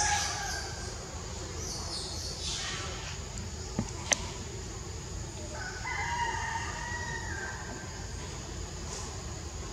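A rooster crows once past the middle, a held call of about two seconds, over a steady high hiss. A single sharp click comes about four seconds in.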